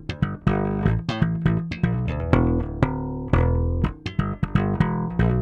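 Dingwall ABZ six-string bass guitar played dry, with the compressor bypassed: a quick run of notes with sharp attacks, each ringing on into the next.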